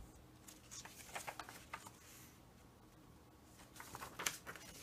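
Faint rustling and light taps of paper being handled, in two short spells with a quieter stretch between.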